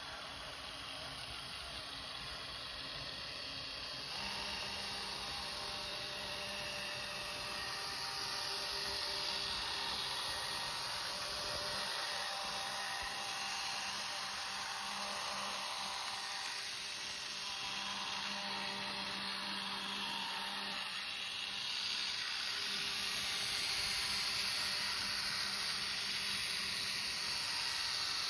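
Z-scale model train running on its track: the locomotive's tiny electric motor gives a steady hum over a hiss of wheels on rails, growing louder from about four seconds in as the train comes close.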